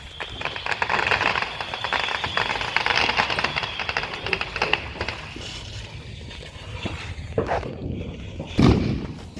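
Fireworks crackling, a dense stream of small pops that thins out after about five seconds, then a couple of louder bangs near the end.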